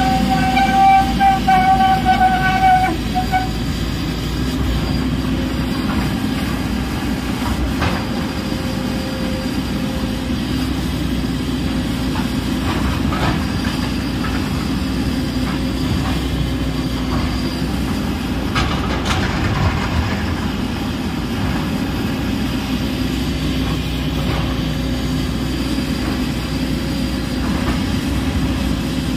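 JCB JS220 tracked excavator's diesel engine running steadily under working load, with the clatter of its steel tracks and hydraulics. A loud high whine with overtones sounds over it for the first three seconds, then stops.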